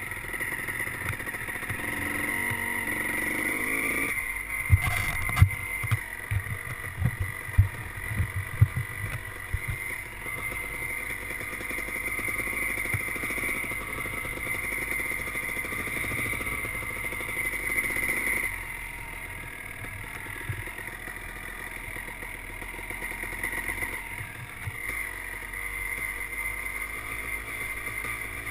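Honda 250 two-stroke off-road engine running steadily as it is ridden, picked up by a helmet-mounted camera along with wind rush. There is a cluster of sharp low thumps between about five and nine seconds in, and the engine gets quieter about eighteen seconds in.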